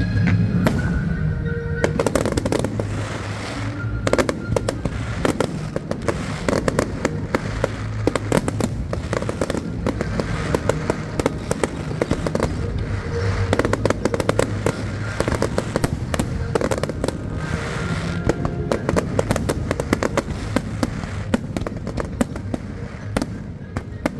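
Fireworks display going off in rapid, dense bursts and crackles, with show music playing alongside.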